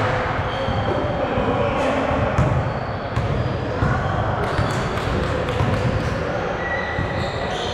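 A basketball bouncing on a gym court during a game: repeated sharp bounces over a steady din of players' voices and court noise.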